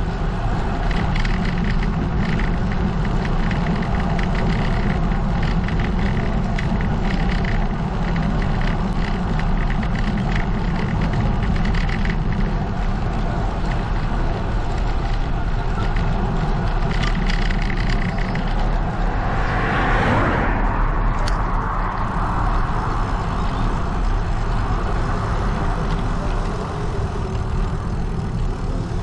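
Wind buffeting a GoPro 9's microphone on a road bike at speed, a steady loud rumble and hiss with tyre noise on asphalt. A vehicle passes about two-thirds of the way in, swelling and fading.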